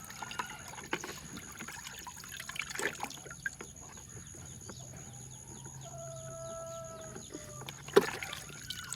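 Water trickling and dripping with scattered small plastic knocks as toy vehicles are rinsed, and a sharp knock about eight seconds in. A chicken calls once in the background, from about five and a half to seven and a half seconds in.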